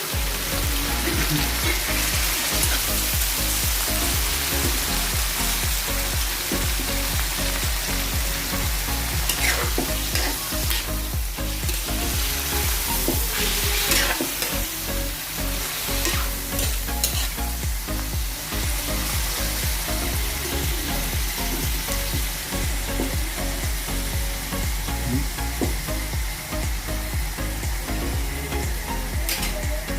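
Pork frying in hot oil with garlic and onion, a steady sizzle, stirred in the pan. There are a few sharp scrapes or knocks of the utensil about midway and near the end.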